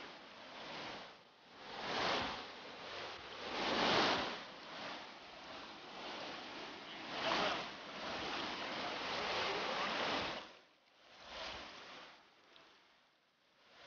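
Rushing whitewater of a river rapid, surging louder and softer several times, then falling away to a quieter flow near the end.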